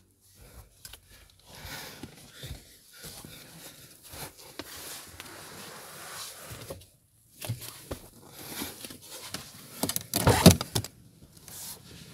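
Rustling and small knocks of handling inside a car's cabin, then a loud clunk and clatter about ten seconds in as the car's inner door handle is worked and the door unlatched.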